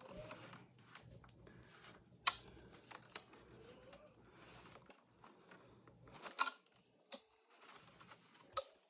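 Plastic parts of a MacBook being handled and pressed, with light rubbing and scattered clicks: a sharp click a couple of seconds in and a few more near the end. The loose corner of the display bezel is being pushed to try to snap it into place.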